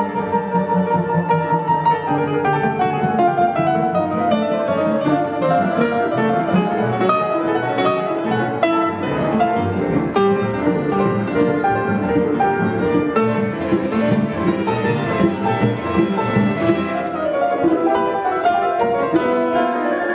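Grand piano and a symphony orchestra's strings playing a classical piece for piano and orchestra. It begins with a high note held for about two seconds, then a falling line, then a dense stream of quick notes.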